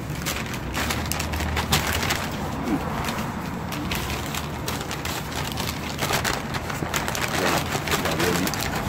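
Paper food wrappers crinkling and rustling in dense, irregular crackles as they are crumpled and stuffed into a paper takeout bag.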